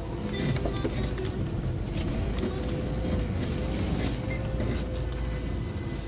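Car driving slowly through deep fresh snow, its engine and tyres making a steady low rumble heard from inside the cabin. Music plays quietly from the car stereo underneath.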